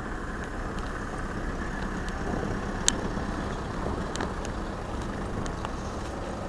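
Steady street traffic noise from a queue of cars in slow town-centre traffic, with a few faint clicks and one sharp click about three seconds in.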